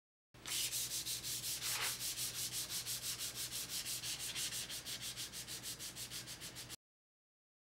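Paper pad rubbed quickly back and forth across the polished steel face of a Cliff Carroll farrier's anvil, a hissing rasp pulsing at several even strokes a second. It starts abruptly and cuts off suddenly near the end.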